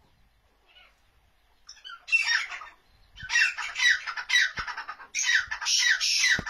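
Francolins (teetar) calling. After a quiet start, a loud series of harsh, repeated calls begins about two seconds in. Each note falls in pitch, roughly two a second, with a few dull thumps underneath.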